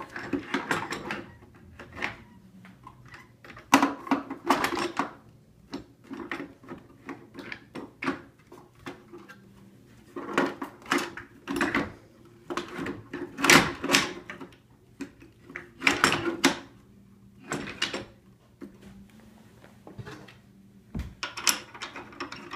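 Aeron office chair's plastic seat and frame parts handled and fitted together: irregular clunks, clicks and rattles in bursts a few seconds apart, as the seat goes back onto the repaired tilt mechanism.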